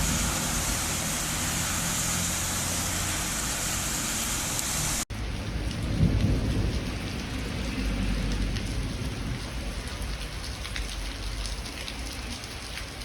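Heavy rain falling steadily, with a low rumble under it. It breaks off abruptly about five seconds in, and a second stretch of rain follows with gusty low rumbling and scattered drop ticks.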